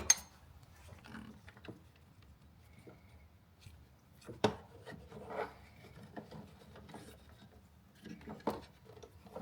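Scattered clicks and knocks of hand tools and metal parts being handled in the engine bay while the supercharger drive belt and its replacement pulley are being refitted, with light rubbing in between. There is a sharp click at the very start and a louder knock about four and a half seconds in.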